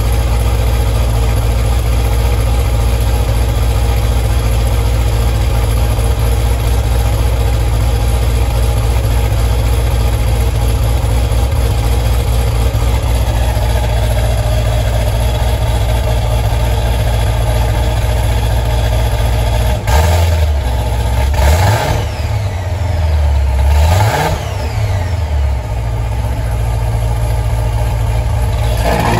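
2005 Corvette's modified V8 idling steadily through a Hooker Blackheart axle-back exhaust, then revved sharply three times about two-thirds of the way through, each rev rising and falling, before settling back to idle.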